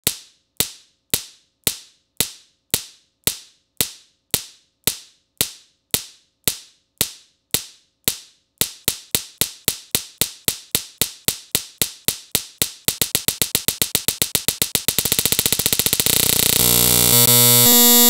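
One short, sharp recorded click repeated as an edited loop, about twice a second at first, then about four a second from a little past the middle, and faster still until the clicks run together into a steady buzzing tone near the end.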